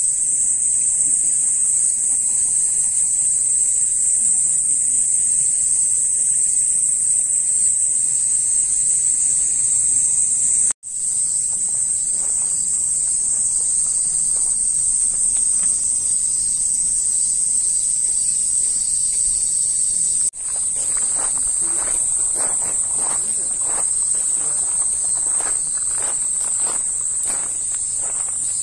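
A loud, steady, high-pitched chorus of insects that breaks off for an instant twice. In the last third come footsteps crunching on a gravel path, about two a second.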